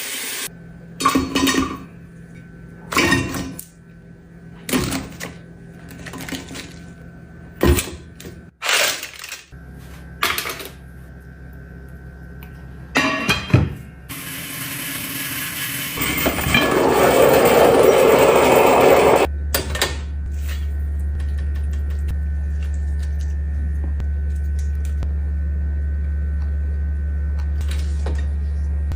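Dishes and utensils knocking and clinking in a series of short sharp sounds, then a few seconds of loud hissing, then a steady low hum.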